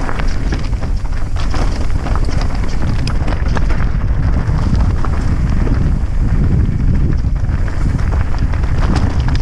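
Heavy wind buffeting the camera microphone, with continual clicking and rattling from travelling over a loose rocky trail.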